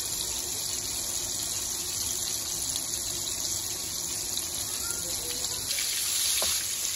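Battered chicken pieces shallow-frying in hot oil in a pan, a steady sizzle of bubbling oil.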